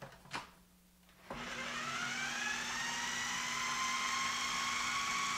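Food processor motor starting up after a short click about a second in, its whine rising in pitch as it spins up and then running steadily while it blends chickpeas into hummus.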